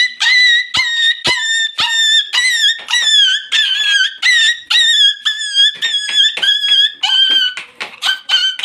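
A small boy mimicking a hurt puppy with his voice: a rapid string of high-pitched yelping whimpers, about two a second, each dipping slightly in pitch. It is the cry a puppy makes when injured or beaten.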